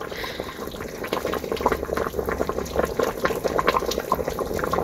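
Pot of pork kimchi stew bubbling on the stove, with thick broth popping irregularly as tongs move through the kimchi and meat.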